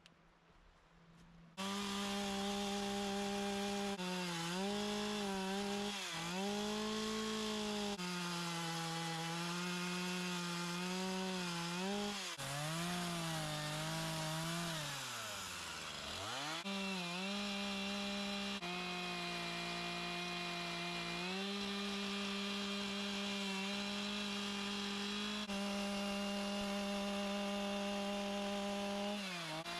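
A two-stroke chainsaw starts up loud about two seconds in, running at high revs while carving into wood. Its pitch sags and recovers again and again as the chain bites. About halfway through it drops briefly toward idle, then revs back up and runs steadily near full throttle.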